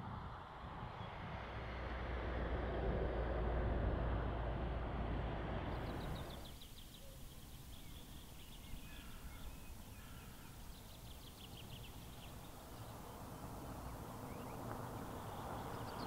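A low, noisy rumble that stops abruptly about six seconds in. It gives way to a quieter outdoor background in which small songbirds sing short, rapid, high trills three or four times.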